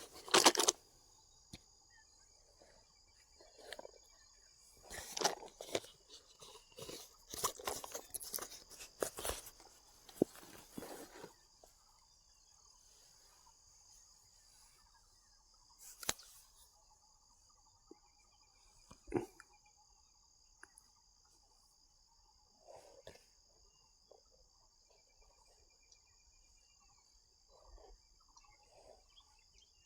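Insects chirring steadily in a high, even drone. A cluster of sharp clicks and rustling handling noises, loudest about half a second in, runs through the first ten seconds, and a few single knocks follow later.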